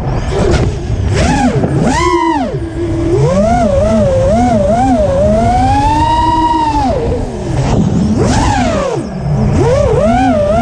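5-inch FPV racing quadcopter's brushless motors and props whining, the pitch swooping up and down with the throttle, with a quick run of about four throttle blips around the middle. Wind rushes steadily underneath.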